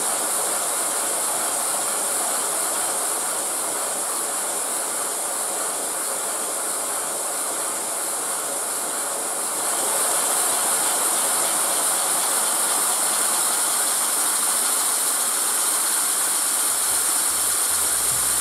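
Compressed air from an air-compressor hose hissing steadily through a running wooden model double-acting steam engine. The hiss grows louder about ten seconds in.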